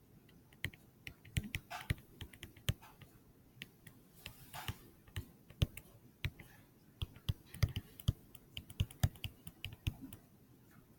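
Irregular light clicks and taps of a stylus writing on a tablet screen, many short ticks a second, uneven in spacing.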